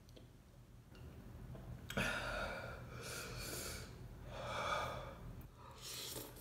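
A man breathing hard and gasping through his mouth from the burn of extra-spicy noodles: several noisy breaths, the first about two seconds in.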